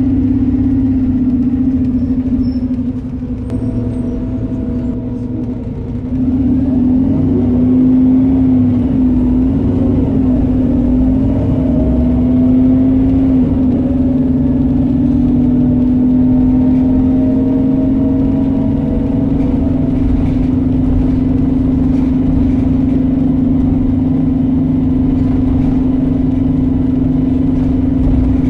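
Volvo B7RLE bus's 7-litre six-cylinder diesel and ZF automatic gearbox running under way, heard from inside the passenger saloon as a steady drone. It drops back for a few seconds about three seconds in, then pulls again with a whine that slowly rises in pitch.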